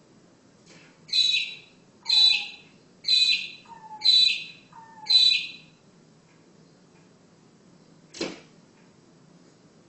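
A bird giving five harsh calls, about one a second, then a single sharp knock near the end, fitting the bird striking the window glass.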